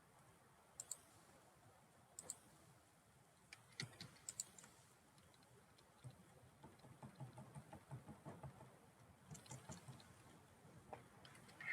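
Faint computer mouse and keyboard clicks: a few scattered single clicks, then small clusters about four seconds in and again near ten seconds.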